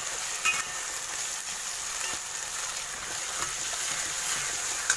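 Chopped onion, tomato and green chillies sizzling in hot oil in a stainless steel pan while a steel spoon stirs them, with a few clicks of the spoon against the pan. The steady sizzle is the sautéing stage, with the onion and tomato softening.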